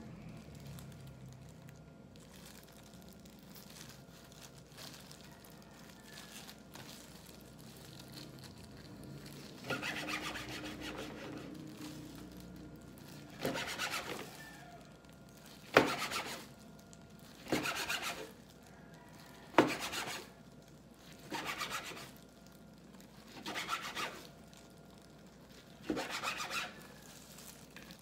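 Chef's knife slicing a kimbap roll on a cutting board. Each cut saws through the seaweed wrap and ends in a sharp tap of the blade on the board. The cuts start about ten seconds in and come about every two seconds.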